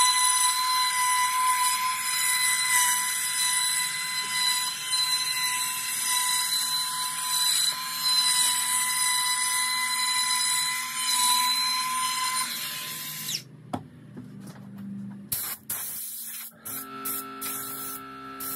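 Milwaukee cordless router running at high speed, a steady high-pitched whine over a cutting hiss as it surfaces the end-grain face of a hardwood cutting board in a flattening jig. It stops abruptly about 13 seconds in. A few knocks follow, then background music starts near the end.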